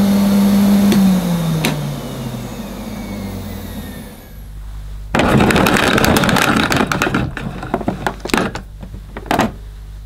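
A Hoover Sensotronic 1000 cylinder vacuum's motor is switched off and runs down, its hum falling in pitch and fading. About five seconds in, the automatic cord rewind is pressed with the foot, and the mains cable rattles into the machine for a few seconds, ending with a couple of knocks as the cable reels in.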